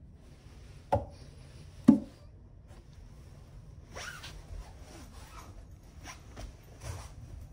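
Handling noise beside wooden furniture: two sharp knocks about a second apart, then a few seconds of soft rubbing and rustling.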